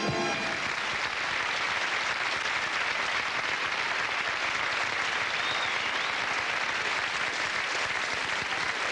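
Music ends just after the start, and a large audience applauds steadily in a big hall for the rest of the time.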